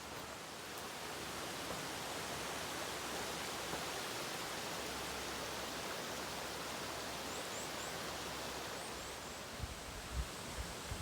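Steady rushing of a mountain river over its stony bed, an even hiss with no let-up. A few low thuds come in near the end.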